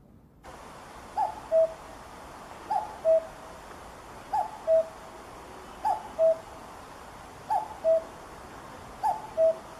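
Common cuckoo calling its two-note "cu-coo", the second note lower than the first, six times about every one and a half seconds over a steady background hiss.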